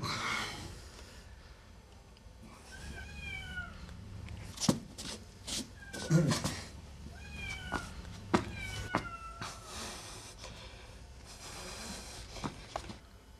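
White kitten meowing several times: short, high calls that fall in pitch, with a few light knocks in between.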